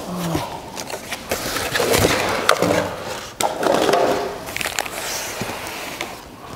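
Plastic-wrapped motorcycle muffler being slid out of its long cardboard box: cardboard scraping and rustling, with plastic wrap rustling and a scatter of light knocks.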